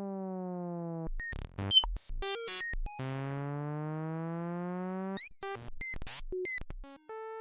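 Electronic synthesizer music: a held tone sliding slowly down, then a scatter of short blips, then a held tone sliding slowly up, more blips, and a steady held tone near the end.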